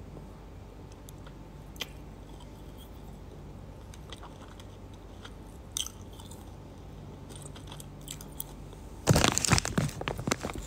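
A person chewing food right at a phone's microphone: a few soft mouth clicks over a steady low hum, then about nine seconds in a loud, dense run of crunching.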